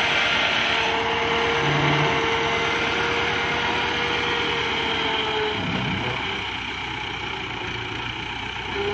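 Massey Ferguson 265 tractor's three-cylinder diesel engine running under load as it pulls a heavily loaded trolley, a steady drone that eases a little after about five seconds.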